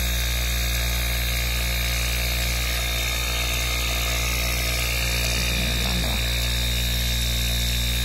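Opened-up refrigerator compressor, a small single-cylinder piston pump with its reed valves removed, running steadily on a variable-frequency drive at 60 Hz with a constant hum. It is running dry with no oil, and the owner reckons it's "not happy with no oil".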